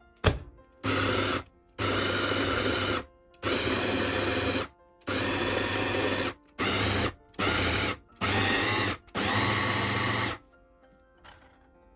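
Small electric kitchen appliance motor switched on and off in eight short runs of about half a second to a second and a half each, with a click just before the first run.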